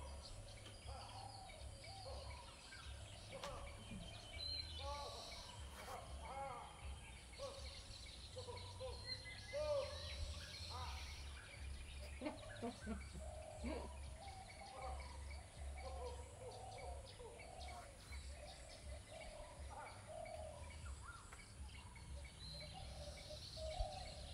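A man's repeated laugh-like hooting calls, made to scare monkeys away, with birds chirping.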